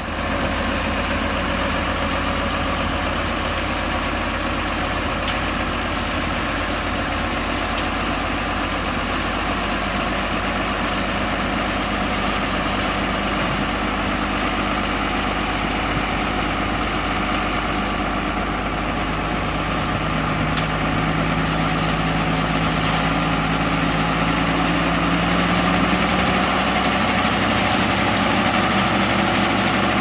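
Tata 2518 tipper truck's diesel engine running steadily while its hydraulic hoist raises the dump body to tip out a load of soil. Past the middle a higher tone comes in and rises slowly as the engine works a little harder.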